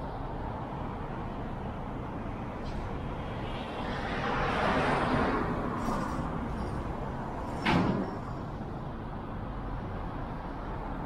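Street traffic around a car waiting at an intersection, with a vehicle passing in a swell of noise a few seconds in. About two-thirds of the way through comes one sharp, loud slam or knock, the loudest sound here.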